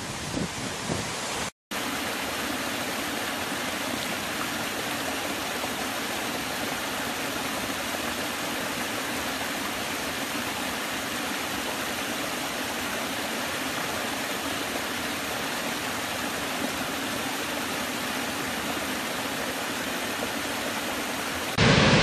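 Small woodland waterfall spilling over mossy rock ledges into a shallow pool: a steady, even rush of water. A brief drop-out comes about a second and a half in, and the louder rush of a large waterfall cuts in near the end.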